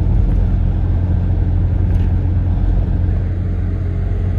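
Truck cab interior at motorway speed: steady engine drone with road and tyre rumble.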